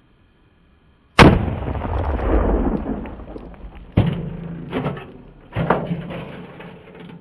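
A single shot from a Marlin Model 30TK .30-30 lever-action carbine about a second in, its report rolling away over a couple of seconds. Three sharper, lighter knocks follow, a little under a second apart.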